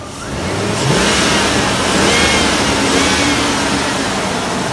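1999 Jeep Grand Cherokee's 4.7-litre V8 revved up from idle about a second in and held at higher revs. It revs cleanly, which the owner takes as a sign the engine is healthy despite its slightly rough idle.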